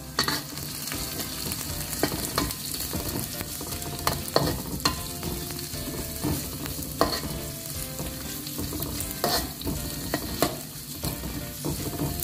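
Chopped red chillies, shallots, garlic and ginger sizzling in hot oil in a wok, with a steady hiss, while a spatula scrapes and knocks against the pan at irregular moments as it stirs them.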